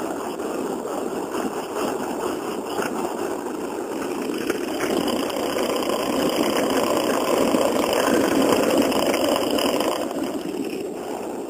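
RipStik caster board wheels rolling over pavement with a steady rumbling noise, which swells in the middle and fades near the end. This is the abnormal wheel noise that the rider at first took for a failing bearing.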